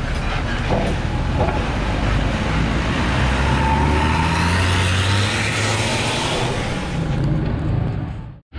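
Road traffic noise: vehicle engines running with a steady low hum, swelling in the middle as something passes. The sound cuts off abruptly near the end.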